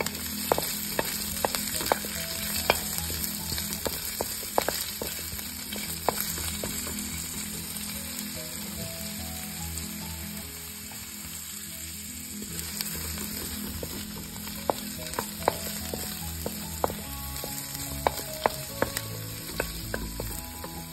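Chopped onion and garlic sizzling steadily in hot oil in a metal wok, with irregular taps and scrapes of a wooden spatula stirring them against the pan.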